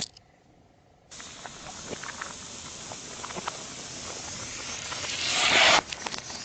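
A sharp click, then a steady hiss of something under pressure escaping as a car tyre crushes it, with small crackles through it; the hiss builds over a few seconds and cuts off suddenly, followed by a few light ticks.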